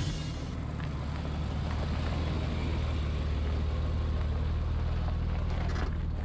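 Land Rover Discovery 4's engine running at low, steady revs as the SUV crawls slowly directly over the camera on a rough dirt trail, with a few faint clicks.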